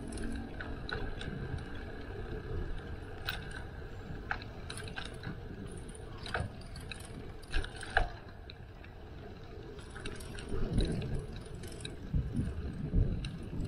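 Bicycle in motion: irregular mechanical clicking and rattling over a steady low rumble, with a few heavier knocks near the end.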